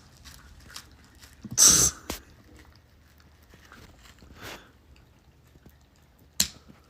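A single loud, hissy sneeze about two seconds in, with a short sharp snort-like burst near the end.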